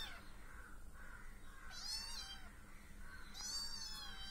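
Young kittens mewing: thin, high-pitched mews, one clear about two seconds in and another near the end, with fainter calls between.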